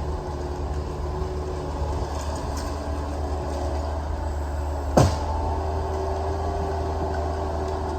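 Heavy machinery engine running steadily with a low drone, with one sharp clunk about five seconds in.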